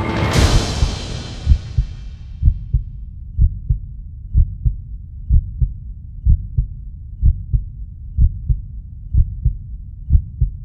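A deep boom at the start that fades away over about two seconds, then a heartbeat sound effect: pairs of low thumps, lub-dub, about one beat a second.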